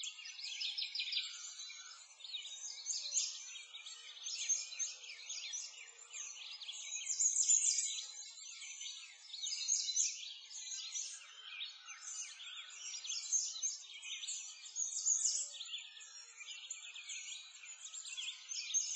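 A chorus of small birds chirping and twittering, thin and high-pitched with nothing in the low range, swelling and fading every few seconds.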